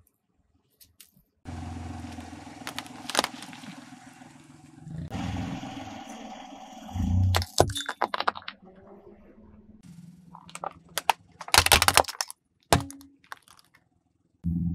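A car tyre rolling over and crushing brittle porcelain and plastic objects: sharp cracks and crunches over a steady engine hum, with a heavy thump about halfway through and the loudest cluster of cracks about three-quarters of the way in.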